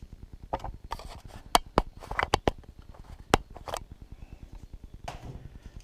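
Handling noise from the flashlight's pouch and packaging: a quick run of sharp clicks and taps over light rustling, clustered between about one and a half and three and a half seconds in.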